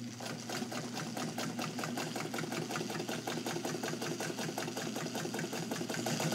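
Necchi BU sewing machine running, its needle stitching through leather at a fast, steady rhythm over the motor's hum, getting a little louder near the end. The leather is feeding smoothly.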